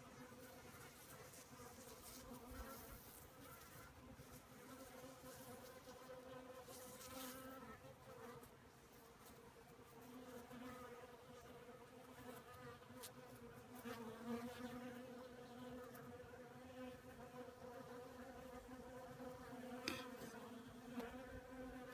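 Honeybees at a hive entrance: a faint, steady buzzing drone of many bees, with a single click near the end.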